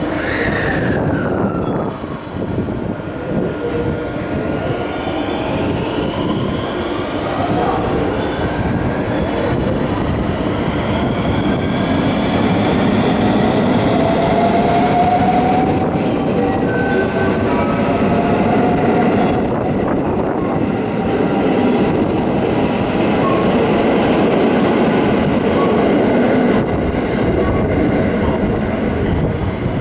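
Electric train moving along a station platform: a steady rumble of wheels and running gear, with motor whine gliding in pitch. The whine falls in the first couple of seconds and rises again through the middle, and the sound grows a little louder after about ten seconds.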